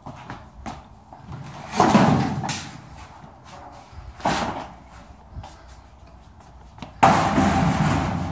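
Steel garage door section being handled and set into place: knocks and clatters, a bang about two seconds in, another just after four seconds, and a louder sudden one about seven seconds in that rings on and fades.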